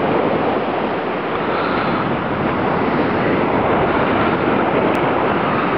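Steady rush of wind and open-sea water, with wind buffeting the microphone.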